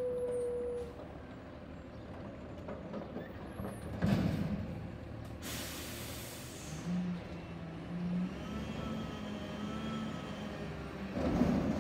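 Garbage truck at work: its engine runs under a sudden loud clunk about four seconds in. A second-long hiss of compressed air follows. Then a whine rises a little in pitch as the truck lifts the dumpster.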